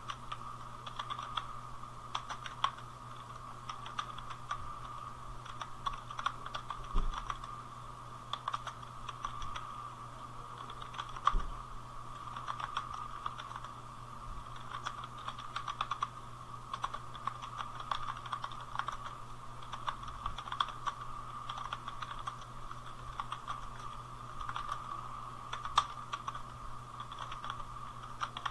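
Steady typing on a computer keyboard: a fast, irregular run of key clicks, with two heavier thuds about seven and eleven seconds in.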